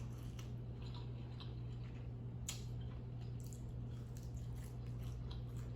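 Close-up chewing and soft wet mouth sounds of someone eating, with small clicks here and there, over a steady low hum.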